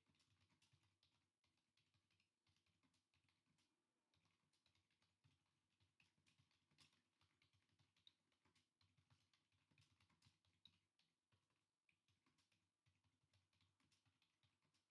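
Near silence with faint, irregular, rapid clicking.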